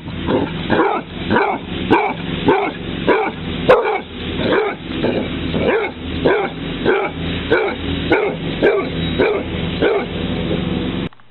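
Basset hound barking in a steady, regular run, a little under two barks a second, stopping abruptly near the end.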